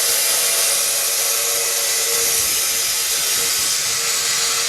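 Compressed air hissing out of a phone-screen debubble (autoclave) chamber as it is switched off and depressurised: a loud, steady rush of air that begins suddenly and slowly eases. The venting drops the chamber pressure so that the door's safety button goes down and the lid can be opened.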